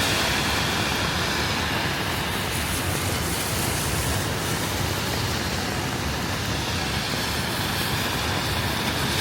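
Steady hiss of rain mixed with the rush of city street traffic, even and unbroken.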